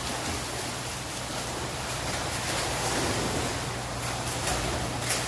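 Pool water splashing and churning steadily as several swimmers kick and thrash while doing hanging knee crunches, with a few sharper splashes, one near the end. A low steady hum lies underneath.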